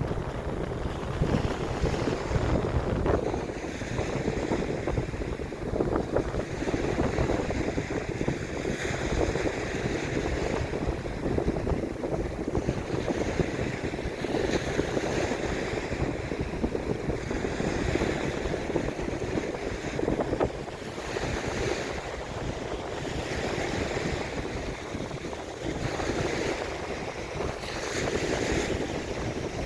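Ocean waves breaking and washing up the beach, swelling and falling every few seconds, with wind buffeting the microphone as a constant low rumble.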